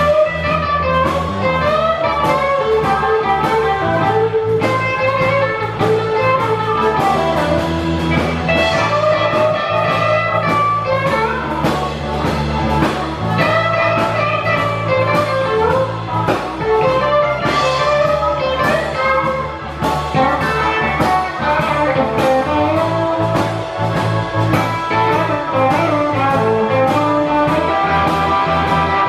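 Live blues band playing an instrumental passage: a guitar plays a melodic lead over bass and drums keeping a steady beat.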